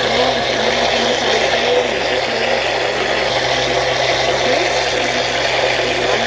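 Countertop blender with a glass jar running steadily on low speed, whirring through a liquid mixture of ground rice and milk with a constant low hum.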